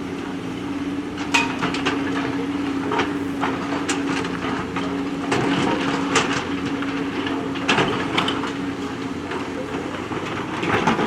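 JCB backhoe loader's engine running steadily under work, with irregular sharp clanks and knocks as the bucket digs and moves river stones.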